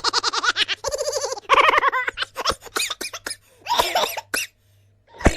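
A run of short meme sound-effect clips, mostly bursts of laughter and voice snippets one after another with brief gaps, ending with a sharp hit just before the end.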